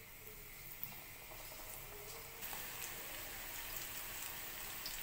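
Pakora batter of radish leaves and gram flour sizzling as it is dropped by hand into hot oil in a kadhai. The sizzle grows louder about two and a half seconds in as more batter goes in.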